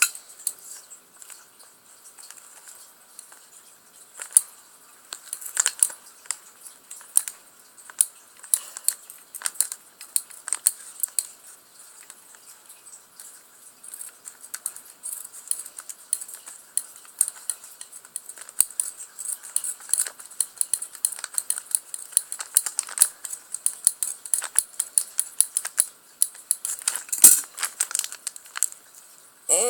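A small plastic bag of toy plastic pieces being handled and opened: intermittent crinkling of the plastic with many light clicks and rattles of the small pieces inside.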